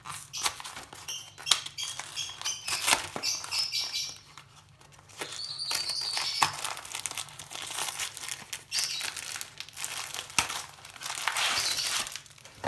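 Plastic packet of dry spaghetti crinkling and rustling as it is handled, with scattered clicks, going quieter for a moment about four seconds in.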